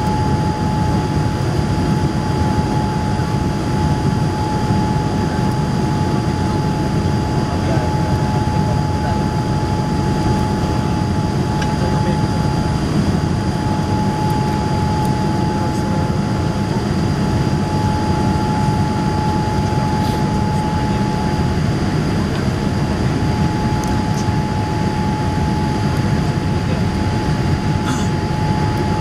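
Steady cabin roar inside a Boeing 787-8 airliner climbing after takeoff: jet engine and airflow noise heard over the wing, with a steady whining tone above it.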